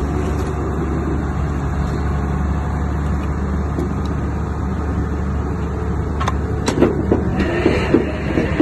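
Diesel engine of an excavator on a drilling and piling job running steadily, with sharp metallic clanks and a clatter of knocks starting about six to seven seconds in.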